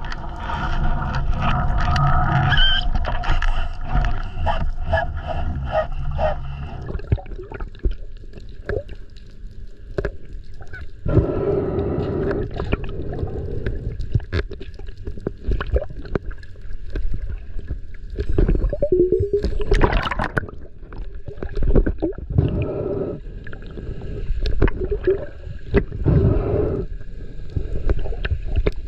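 Underwater sound picked up through a diving camera's housing while a speared fish is fought on the line: a constant low rumbling water noise with many knocks. A steady whining tone runs through the first several seconds, and a sharp hissing burst comes about twenty seconds in.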